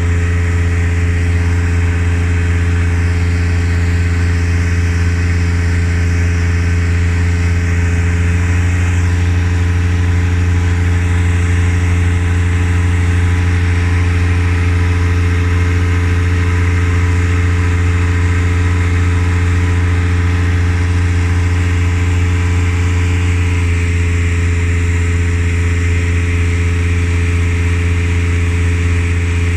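An engine running steadily at constant speed, a loud low hum with overtones. Its tone changes slightly about eight seconds in and again near the end, as if its load changed.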